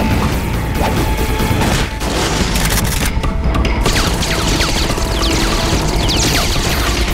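Cartoon action soundtrack: dramatic music under rapid gunfire and impacts. From about halfway in, bullets ricochet with whines that fall in pitch.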